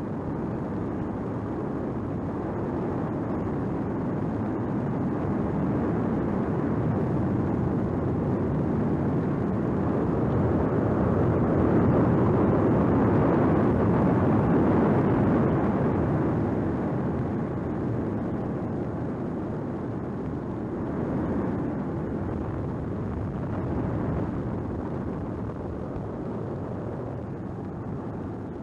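Lava fountain on Kilauea erupting: a steady, dense rushing noise that swells to its loudest about halfway through, then eases off.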